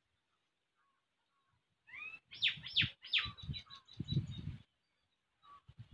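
A bird calling: a quick run of sharp falling chirps starting about two seconds in, over low background noise.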